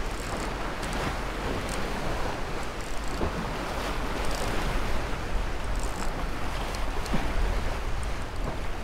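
Surf washing against jetty rocks with wind buffeting the microphone, with a few light high ticks now and then.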